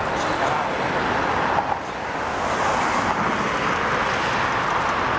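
Steady jet noise from a four-engined Airbus A380 on final approach, a broad rumble and hiss mixed with road traffic on the street below. The loudness dips briefly about two seconds in.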